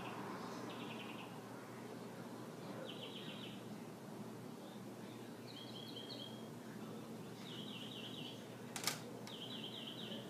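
Faint, high-pitched chirping: short trilled chirps repeated every second or two over a low steady hum. A single sharp click comes near the end.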